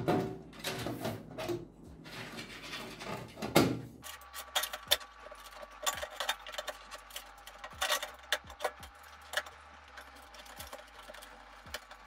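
Hard drive tray being slid back into a PC cabinet: handling noise and knocks for the first few seconds, the loudest knock about three and a half seconds in, then scattered light clicks and taps.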